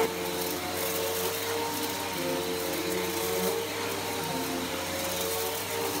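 Bissell PowerForce Helix Turbo upright vacuum cleaner running steadily as it is pushed across carpet.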